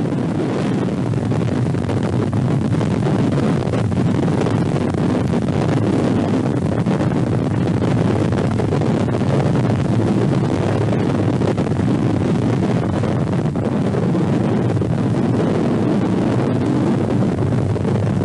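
Vostok rocket's engines running at lift-off: a steady, loud rush of noise, heaviest in the deep range.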